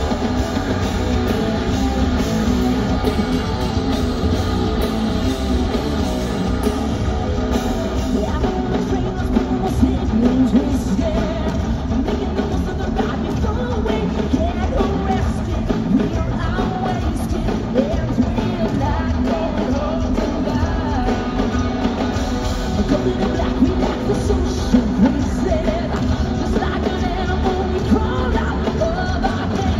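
Hard rock band playing live: distorted electric guitar, bass guitar and drum kit, with a woman singing lead.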